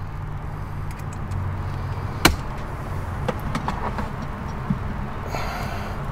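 Clicks and knocks of a cordless compact drill being handled and fitted into place inside a plastic truck center console, with one sharp click a little over two seconds in, over a steady low hum.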